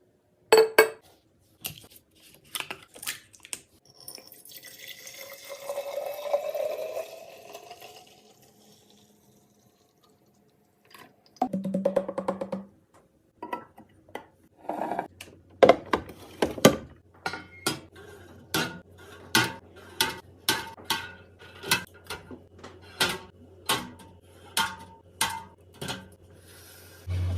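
Restocking sounds of containers and packages being handled: scattered clicks and clinks, a few seconds of liquid pouring with a pitch that rises as the container fills, then a quick run of sharp clicks over a steady low hum.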